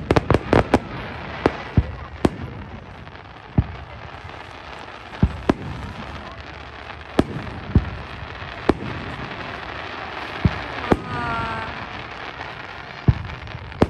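Aerial fireworks shells bursting: a quick volley of about six sharp bangs at the start, then single bangs every second or two over a steady hiss.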